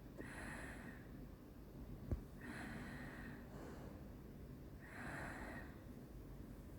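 Faint snoring of a person sleeping deeply from tiredness: three breathy snores about two and a half seconds apart. A single sharp click about two seconds in is the loudest sound.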